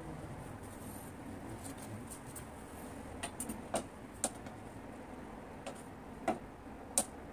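A handful of sharp clicks and light knocks from fishing rods being slotted into a metal wall-mounted rod stand. They start about three seconds in, come irregularly, and the loudest is near the end.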